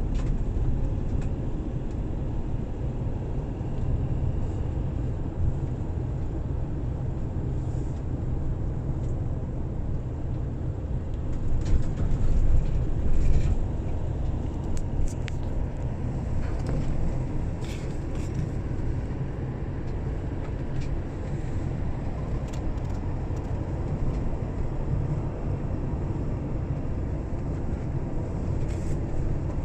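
Steady low rumble of a car's engine and tyres on asphalt, heard from inside the cabin while driving, with a brief swell about twelve seconds in and a few faint ticks.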